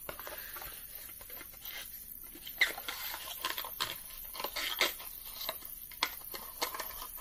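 Light rustling and scraping with small scattered clicks as a small cardboard cosmetics box and its tube are handled.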